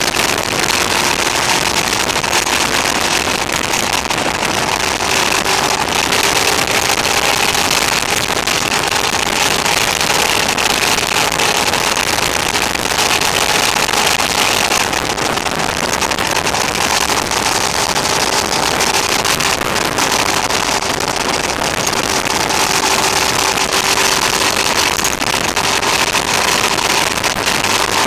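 Motorcycle cruising at a steady speed: a steady engine tone under heavy wind rush on the onboard camera's microphone. The recording is overdriven, its audio gain set a little too high.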